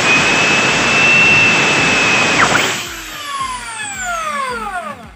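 Bosch GSB impact drill running at full speed with a steady high motor whine under a heavy rush of air. About two and a half seconds in it is switched off and the whine falls away as the motor coasts to a stop. The rushing noise is the drill's cooling air blowing on the microphone, not a fault in the machine, which the owner says sounds perfect with its new spindle bushing.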